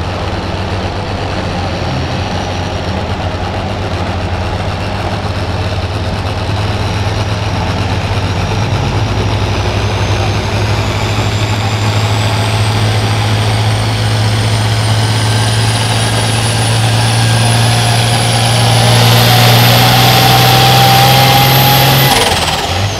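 Farm stock pulling tractor's diesel engine running under full load while dragging a weight-transfer sled, with a steady low drone and a high turbocharger whine that climbs in pitch and grows louder. About a second before the end the engine is throttled back and the whine falls away sharply as the pull ends.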